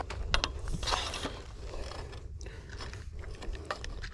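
Spinning fishing reel and rod being handled: sharp clicks and a short rattle about a second in, then a run of small mechanical clicks from the reel as its handle is worked.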